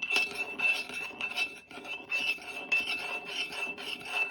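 Salt being stirred into vinegar in a pot, a utensil scraping round the pot about three times a second, with a high ringing note from the pot; the stirring dissolves the salt granules.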